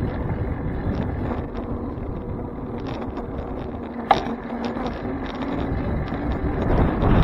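Wind rumbling on the microphone of a bicycle-mounted camera, with road and tyre noise from a bicycle ride, growing louder near the end. Small rattling clicks run through it, and a sharper click comes about four seconds in.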